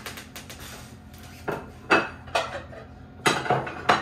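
Ceramic dinner plates clattering and clinking against each other and the counter as they are put away from the dishwasher: a series of sharp clacks, grouped around the middle and again near the end.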